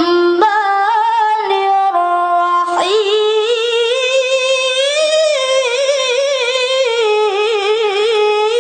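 A child reciting the Quran in the melodic tilawah style, sung unaccompanied in a high voice: "ar-Rahman" of the basmala, then from about three seconds in one long drawn-out note that rises, wavers through quick ornaments and settles back down.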